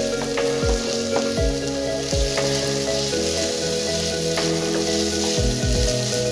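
Diced carrots and onions sizzling as they fry in oil in a non-stick pan, a steady hiss, with a few light clicks as a wooden spoon stirs and scrapes against the pan. Background music plays underneath.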